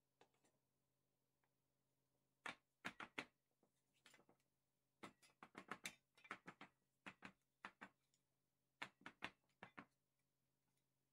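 Irregular clusters of short, sharp taps and knocks from spatulas and a metal springform cake tin being handled on a table while batter is smoothed into it, over a faint steady hum.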